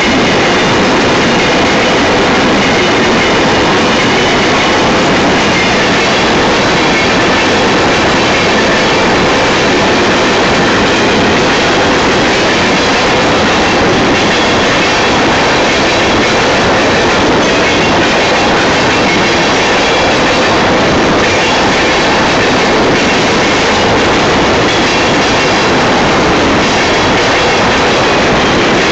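Union Pacific manifest freight train's cars, covered hoppers and tank cars, rolling steadily past close by, the wheels clattering over the track, with a thin, faint wheel squeal.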